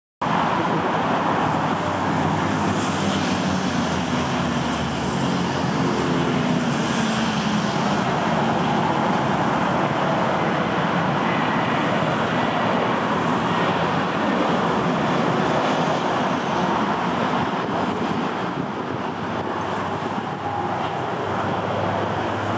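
An aircraft tow tractor's engine running steadily as it pulls an Airbus A330-900 along the taxiway, under a continuous wash of airport noise.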